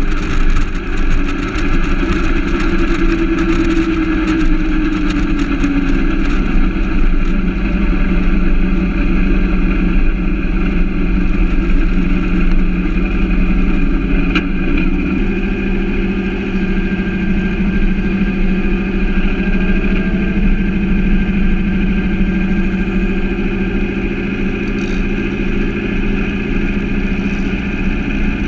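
Turbocharged 2332 cc air-cooled VW flat-four running steadily at low revs as the car rolls along slowly, the note falling briefly about five seconds in and shifting again about halfway through.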